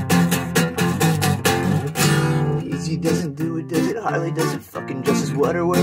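Acoustic guitar strummed fast and hard in a punk rhythm, with a chord left ringing about two seconds in before the strumming starts again.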